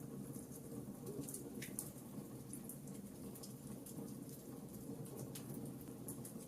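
Fireplace fire crackling softly: scattered small pops and snaps over a low, steady rumble of the flames.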